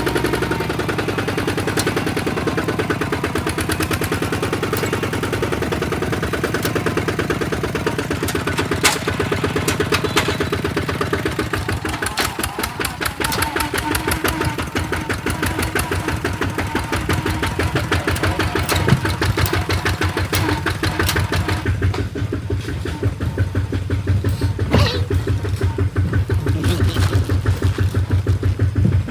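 A small engine running steadily, with rapid even firing pulses; its note drops lower about twelve seconds in.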